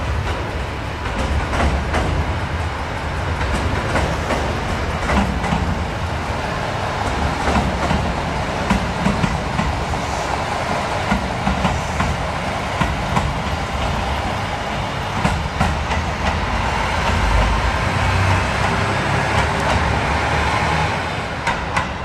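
Two-car JR Kyushu KiHa 220 diesel railcar set passing close by, its engine rumbling under an uneven clatter of wheels over rail joints. The sound eases off near the end as the train pulls away.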